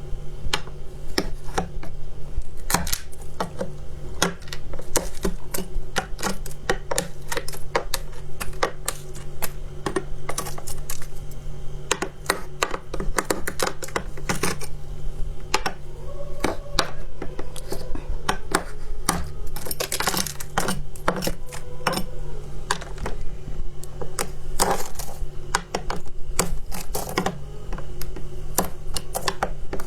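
Close-miked crunching of freezer frost and soft shaved ice being bitten and chewed: a dense, irregular stream of sharp crackles and crunches, with a steady low hum beneath.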